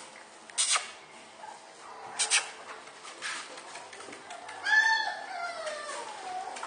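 French bulldog puppies yapping while they wrestle: two short sharp yaps, under a second in and at about two seconds, then a longer whine that rises and falls about five seconds in.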